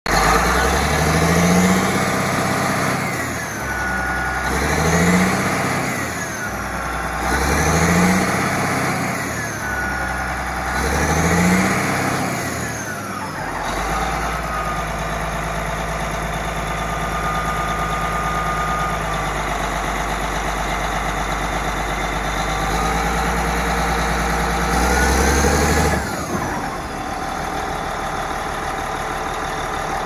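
Caterpillar D8R bulldozer's diesel engine, parked, revved four times in a row, each rev rising and falling back. It then runs steadily, gives one more rev near the end, and drops to a lower idle.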